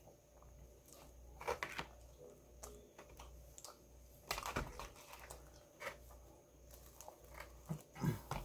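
Hands handling takeout food: scattered light clicks and crinkles from a plastic dipping-sauce cup and a cardboard pizza box, with a few louder handling noises near the end as a baked P'Zone calzone is pulled apart.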